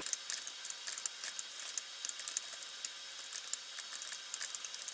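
Typing on a Sun Type 5 keyboard played back at ten times speed, so the keystrokes run together into a fast, dense clatter of clicks.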